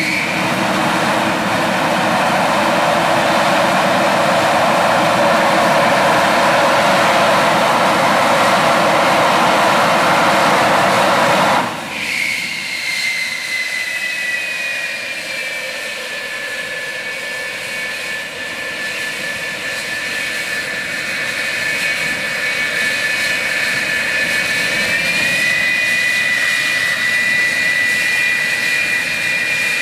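Cartridge start of an F-4F Phantom II's General Electric J79 turbojet. The starter cartridge burns with a loud, steady rushing hiss for about twelve seconds, then cuts off suddenly. After that the engine's high turbine whine runs on its own, its pitch easing down and then stepping up slightly near the end.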